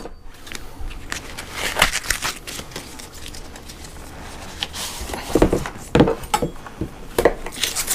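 A stick of butter being taken from its cardboard box and unwrapped, its paper wrapper crinkling and tearing, with scattered light clicks and knocks, several of them louder in the second half.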